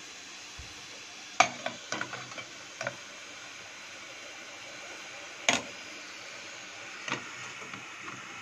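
Aluminium idli plates clinking and knocking against the rim of an aluminium idli pot as they are set in, about five metal knocks with the loudest about five and a half seconds in. Under them, a steady hiss from the pot of boiling water.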